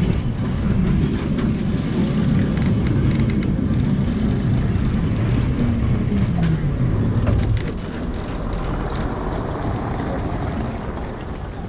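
Lisbon line 28 tram running along its street rails, heard on board: a steady low rumble with a few sharp clicks and rattles about 2 to 3 seconds in and again near 7 seconds, the rumble easing off after about 8 seconds.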